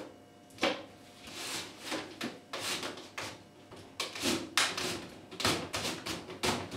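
Washing machine top lid being slid back onto the cabinet, scraping along it in several short pushes with a few knocks.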